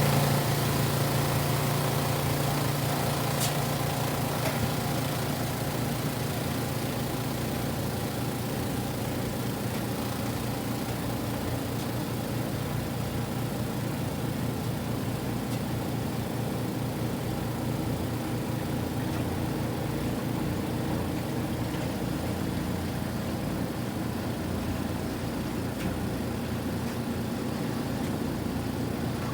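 Kuppet portable washing machine running, a steady motor hum and whir. A deeper hum fades away over the first few seconds.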